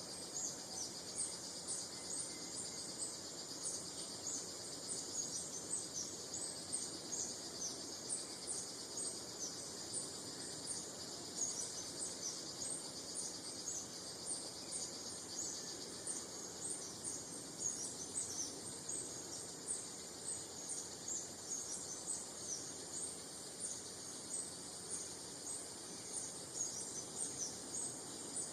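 Woodland ambience: many small birds chirping in quick, overlapping high calls over a steady high insect buzz.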